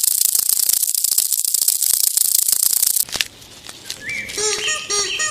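A dense, steady, high-pitched rattling hiss that cuts off abruptly about three seconds in. After a short gap come repeated short bird calls, a few each second.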